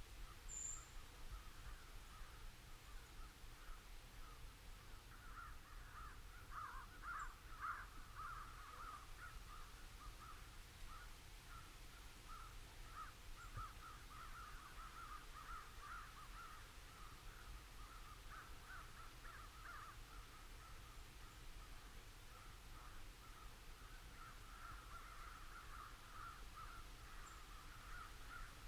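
Distant flock of crows cawing continuously, many birds calling over one another, with a small bird's brief high chirp near the start.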